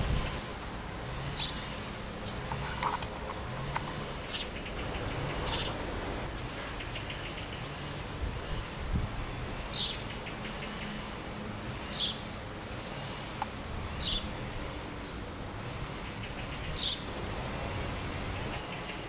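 Small birds chirping outdoors: short high calls every couple of seconds, over a steady low background rumble.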